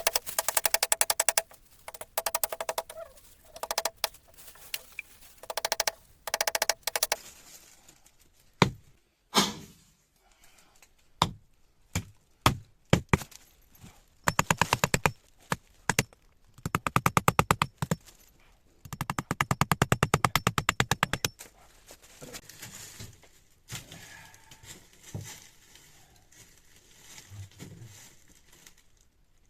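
Wood being worked with hand tools: several bursts of rapid rasping strokes, with a few separate sharp knocks on wood between them.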